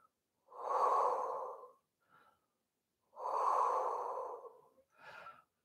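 A woman breathing deeply while holding a stretch: two long breaths of about a second and a half each, a second apart, then a short breath near the end.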